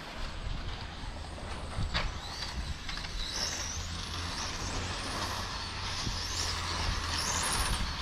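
1/8-scale electric on-road RC cars racing, their motors whining high and rising and falling in pitch as they speed up and slow down, over a steady rushing noise.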